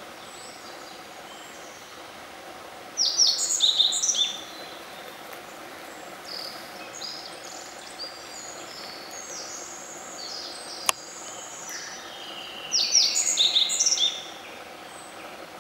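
Black-faced bunting singing: two short phrases of quick, high chirping notes, about ten seconds apart. Fainter, softer song notes come in between, with a single sharp click shortly before the second phrase.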